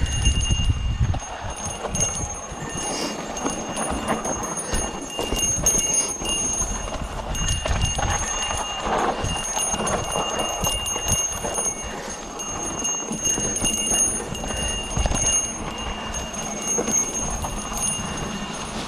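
Mountain bike riding over a rough dirt trail: the bike rattles and ticks with knocks and low rumble, over a steady high ringing.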